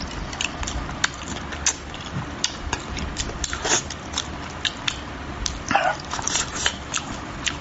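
Close-up eating sounds from someone eating spicy braised carp: irregular wet clicks and smacks of chewing and sucking, with a couple of longer slurps around the middle.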